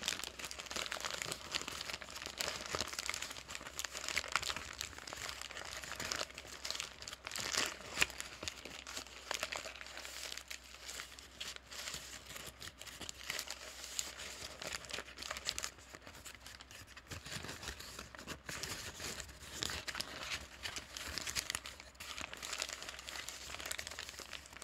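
A paper bag being crinkled and crumpled by hand: a continuous dense crackling with many sharper crackles, the loudest about eight seconds in.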